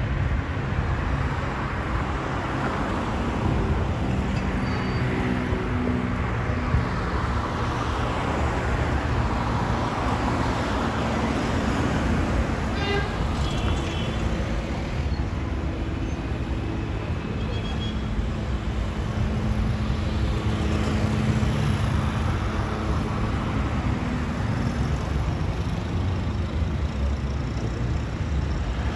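Drone of a Cessna U206 Stationair's six-cylinder piston engine and propeller flying overhead, its pitch drifting slowly, blended with steady street traffic noise.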